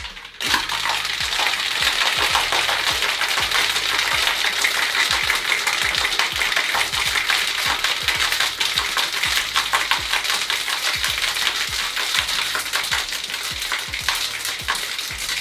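Ice cubes rattling inside a metal tin cocktail shaker that is shaken hard without pause, a dense, continuous clatter.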